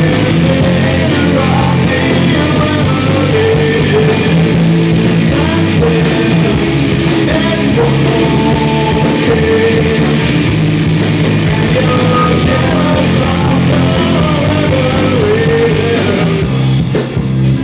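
Live rock band playing loud electric guitars on a pub stage. The sound dips and breaks up just before the end.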